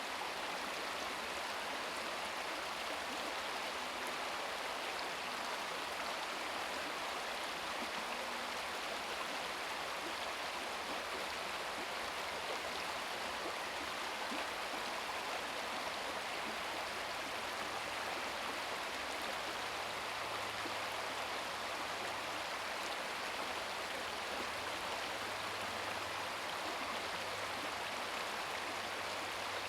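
A small brook babbling and splashing steadily over rocks, an even rush of water with no breaks. A faint low hum joins from about halfway through.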